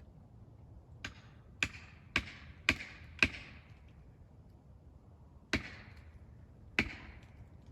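Sharp strikes with a short ring after each, typical of felling wedges being driven into a chainsaw back cut. There are five blows about half a second apart, then two more after a short pause.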